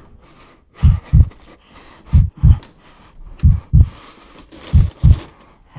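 Heartbeat sound effect: a deep lub-dub double thump, four times at a slow, even pace about 1.3 seconds apart.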